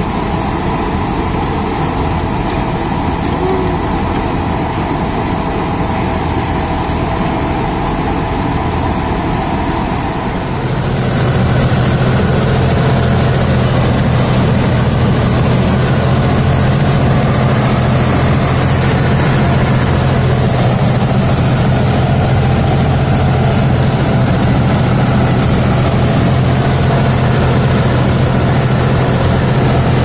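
John Deere 5310 tractor's diesel engine running steadily while it powers the mounted harvester working through the corn. About ten seconds in the sound becomes louder, with a strong steady low hum, as heard from close beside the tractor's engine.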